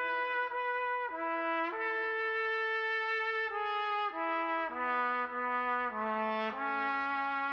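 Music: a slow melody played as a single line on what sounds like a brass instrument, one long held note at a time, stepping up and down in pitch.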